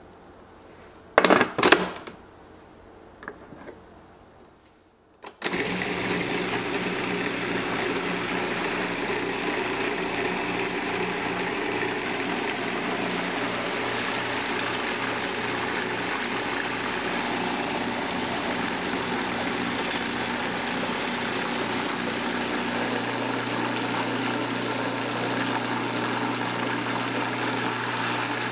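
A few knocks, then an electric food processor starts about five seconds in and runs steadily, pureeing roasted butternut squash.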